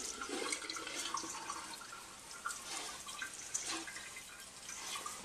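Water from a pull-out kitchen sink sprayer running steadily onto cut broccoli florets in a metal colander, while a hand turns the wet florets over.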